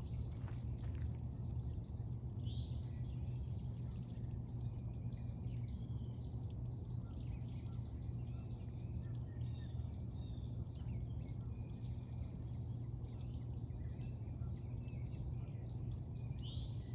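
Steady low outdoor rumble with scattered short bird chirps through it.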